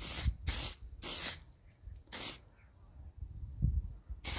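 Aerosol spray can of clear lacquer hissing out in short bursts. There are four quick sprays in the first two and a half seconds and one more near the end.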